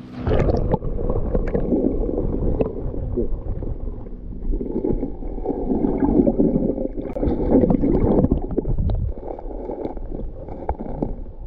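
River water sloshing and gurgling, heard muffled with the microphone under the surface, with scattered small knocks and clicks.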